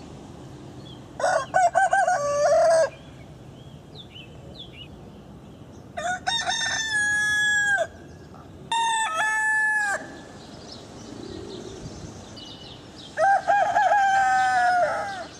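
Roosters crowing: four loud cock-a-doodle-doo calls, each about one and a half to two seconds long, a few seconds apart.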